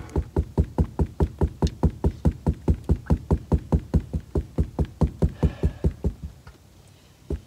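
Spinning reel being cranked to bring a jig up from deep water, heard as an even rhythmic thumping of about five or six beats a second that stops about six seconds in.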